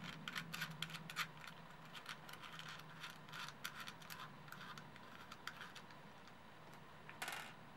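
Fingers fitting a clock hand onto the brass hand shaft of a quartz clock movement: irregular small clicks and scratches of metal on the plastic case and shaft, with a brief scrape near the end.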